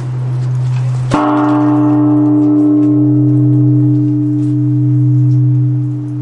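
Large Japanese bronze temple bell (bonshō) struck once, about a second in, with its swinging wooden log, then ringing on with many layered tones that fade slowly. A deep steady hum that swells and fades slowly runs underneath.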